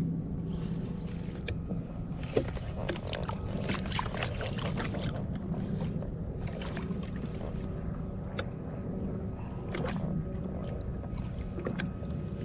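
Fishing kayak on the water: water sloshing against the hull with a cluster of small knocks and clicks in the middle, over a steady low hum.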